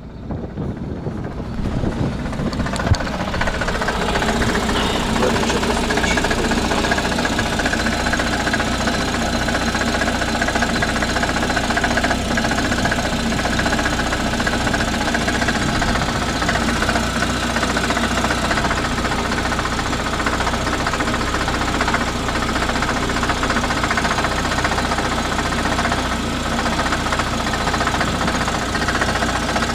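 Lada XRAY engine idling cold, with a knocking that the owner traces to the gearbox and that goes away when the clutch is pressed. It persisted after a warranty replacement of the gearbox and clutch.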